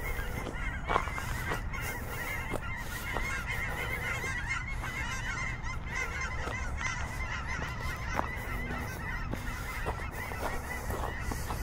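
A dense chorus of many short, repeated animal calls, overlapping continuously, over a steady low background hum, with a few sharp knocks, the loudest about a second in.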